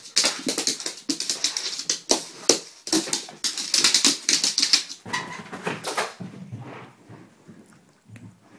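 A lurcher's claws scrabbling and skittering rapidly on a wooden floor as she dashes about in play, a dense patter of clicks that stops about six seconds in.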